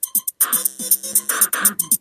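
Music: a drum beat of kick, snare and fast hi-hat ticks, with held synth notes coming in about half a second in.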